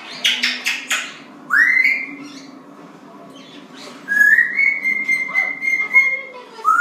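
African grey parrot whistling: a few short raspy clicks, then a quick rising whistle, then a long held whistle of about two seconds that slides up at its start. Another rising whistle begins near the end.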